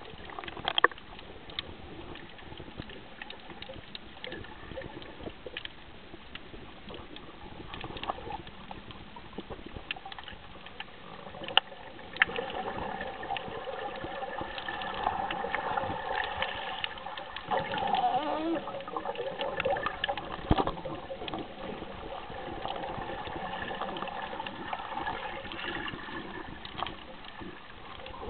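Water sounds from snorkeling, a steady sloshing and trickling with scattered sharp clicks, getting louder and fuller about twelve seconds in.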